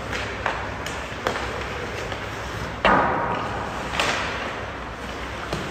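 Ice hockey play: a string of sharp clacks of sticks and puck, with a much louder bang about three seconds in that rings on in the rink.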